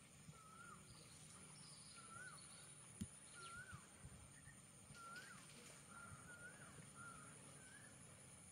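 A bird calling faintly and over and over, a short whistled note that rises and then drops, roughly once a second and creeping a little higher in pitch toward the end. A single sharp click sounds about three seconds in.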